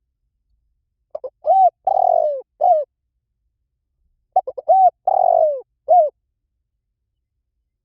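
Spotted dove cooing: two call phrases about three seconds apart. Each is a few short notes leading into a longer coo that falls in pitch at its end, then one short closing note.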